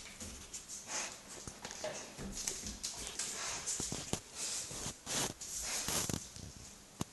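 A Rhodesian Ridgeback and a Galgo playing on a tile floor: a busy run of short breathy huffs and snuffles, mixed with scattered sharp clicks.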